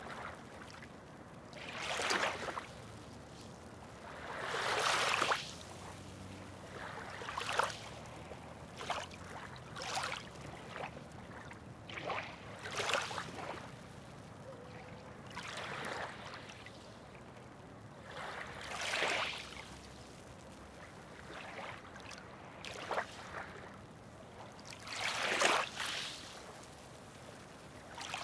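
Small waves lapping and splashing, one surge every two to three seconds over a low steady wash of water.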